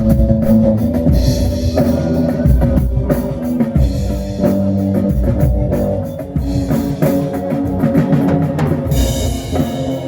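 A rock band playing live with drum kit, bass and electric guitar.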